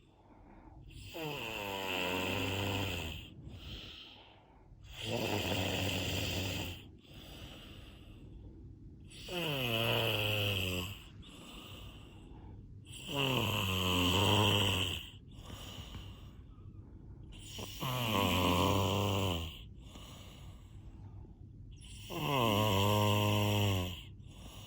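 Snoring: six drawn-out snores about four seconds apart, each sliding down in pitch, with quieter breaths between them.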